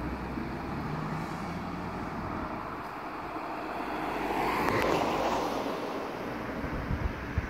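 Road traffic: a car passes, its tyre and engine noise swelling and fading about four to six seconds in, over a steady hiss of road noise.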